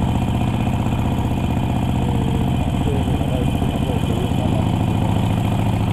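Harley-Davidson Sportster Iron 1200's air-cooled V-twin running through a Vance & Hines exhaust while riding, a steady uneven throb; the engine note drops a little about four seconds in as the throttle eases.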